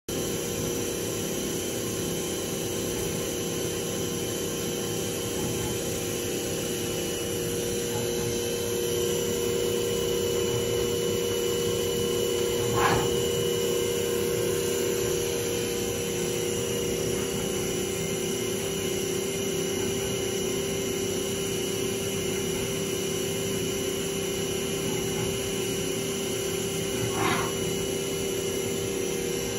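Haas TM2 toolroom mill's spindle running at a steady 4000 rpm, a steady hum with a faint high whine. Two short knocks sound over it, one about halfway through and one near the end.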